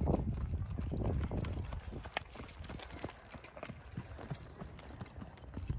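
A ridden horse's hoofbeats on soft arena dirt in a steady rhythm. They are louder for about the first two seconds, then fainter.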